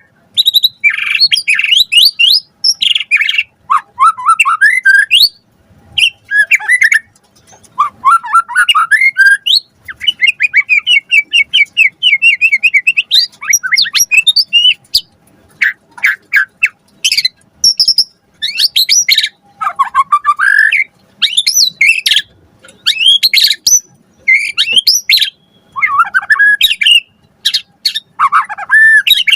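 White-rumped shama (murai batu) singing vigorously: loud, varied phrases of sweeping whistled notes broken by short pauses, full of mimicked calls, with a rapid trill lasting a few seconds about a third of the way in.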